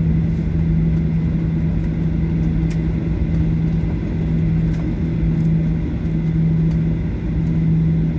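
Cabin noise of a Boeing 737-800 rolling out after landing: a steady low rumble from the CFM56 engines and the wheels on the runway, with a constant low hum.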